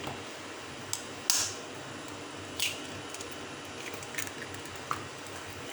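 A few short, sharp taps and wet squishes, the loudest about a second in: a hen's egg being cracked and dropped into a bowl of spice-coated chicken pieces.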